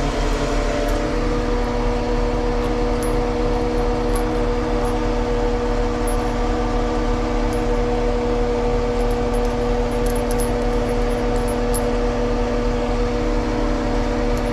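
Steady drone of a running engine or motor, an even hum that holds one pitch, with a few faint light clicks of small metal parts being handled as a valve stem nut is fitted.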